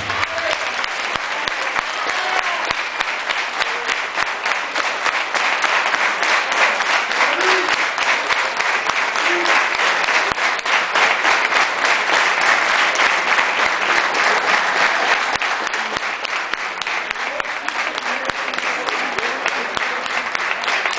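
Audience applauding, a continuous dense clapping with voices in the crowd.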